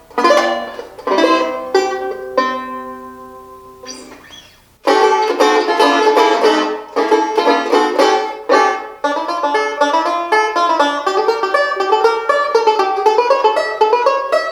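1933 Super Paramount Artist Supreme tenor banjo playing solo. A few struck chords come first, the last one left ringing and fading away. About five seconds in, a fast, busy run of picked notes starts and continues.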